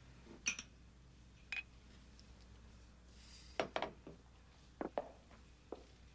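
A few faint, separate clinks and knocks of glasses being handled on a wooden counter, spaced irregularly, with a small cluster of taps a little past the middle.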